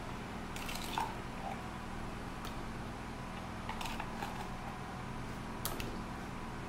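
A spatula scooping thick, creamy body scrub and dropping it into a stainless steel bowl: a few short soft squelches and light scrapes against the metal, over a steady low hum.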